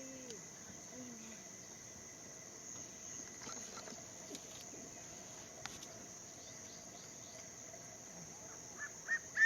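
Steady, faint high chirring of insects, with a few sharp camera shutter clicks and faint murmured voices. Near the end come a few short high notes as the crested serpent eagle starts its territorial call.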